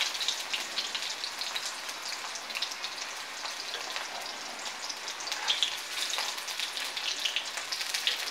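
Onion pieces frying in hot oil in a kadai: a steady sizzle with many small crackles and pops.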